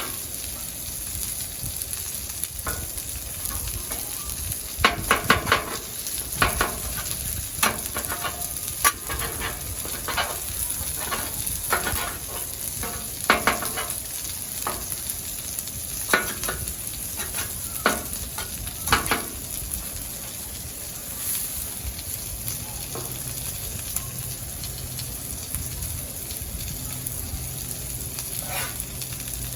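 Food sizzling on a Blackstone flat-top griddle, with a metal spatula scraping and clacking against the steel cooktop. The strokes come thick and fast from about five seconds in, then thin out after about twenty seconds while the sizzle carries on.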